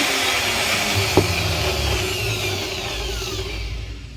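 Electric angle grinder with a freshly replaced bearing winding down after a test run, its motor whine falling steadily in pitch and fading, with a sharp click about a second in. It runs smoothly with no bearing noise.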